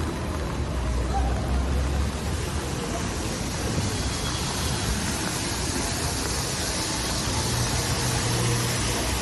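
Traffic on a wet city street: a steady hiss of tyres on the rain-soaked road over a low rumble of engines. The hiss grows stronger after a few seconds.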